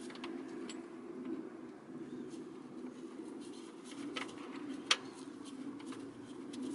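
Light metal clicks and taps as a throttle body and its bolts are handled and fitted by hand, with one sharper click about five seconds in, over steady background noise.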